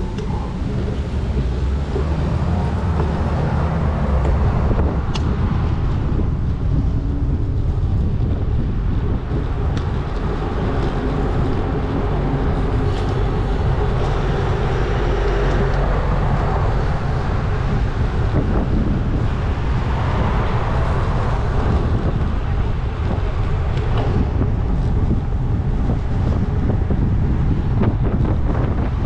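Steady wind rumble on the microphone of a moving bicycle, over road and traffic noise.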